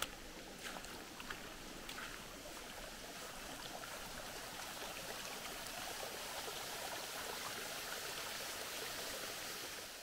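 Steady outdoor rushing noise that grows slightly louder, with a few footsteps in the first couple of seconds.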